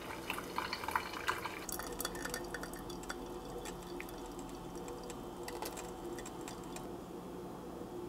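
Brewed coffee trickling and dripping from a Bunn Speed Brew Classic's brew funnel into its glass carafe as the brew comes to an end. The drips become sparse near the end.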